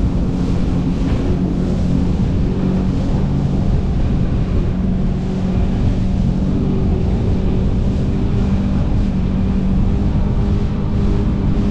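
Jet ski engine running steadily at cruising speed, a constant drone with a low rumble of wind on the microphone.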